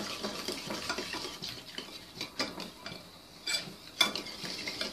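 Spiced buttermilk being stirred in a china bowl, a run of small wet scrapes and light clinks against the bowl, easing off briefly before a sharper knock about four seconds in.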